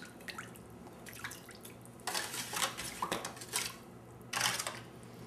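A metal spoon stirring brine in an aluminium foil pan, clinking and scraping against the foil with small wet splashes. The clatter is sparse at first, comes in a run about two seconds in, and again briefly near the end.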